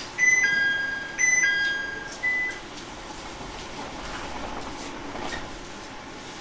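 Two-note electronic chime inside a JR 701 series train, a high note stepping down to a lower one, sounding twice and then a short third high note, over a quiet steady hum.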